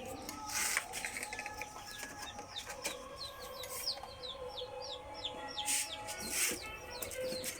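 Domestic chickens clucking, with a quick series of short, high, falling chirps in the middle and a few brief rustles.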